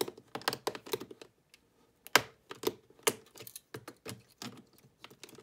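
Scissors cutting through a stiff plastic clamshell pack: an uneven run of sharp snips and clicks, the loudest about two and three seconds in.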